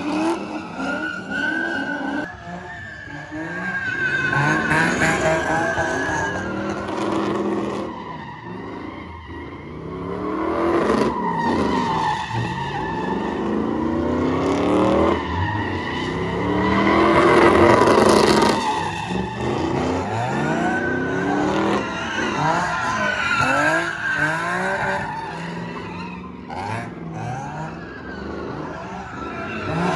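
Car engine revving hard and falling back over and over, with tires squealing; loudest a little past the middle.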